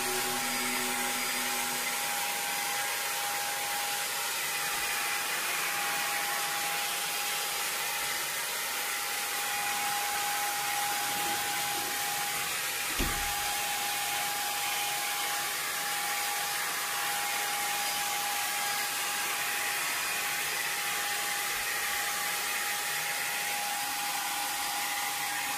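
Handheld pistol-grip electric air tool running steadily on the freshly painted motorcycle panel: a constant motor whine under a rush of blown air, with a single knock about halfway through.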